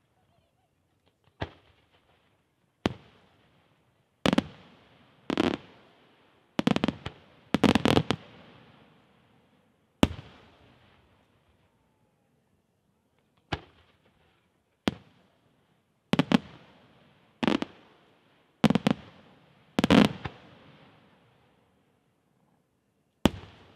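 Aerial firework shells bursting: over a dozen sharp bangs, each trailing off in an echo, coming at irregular intervals with some in quick clusters and short quiet gaps between.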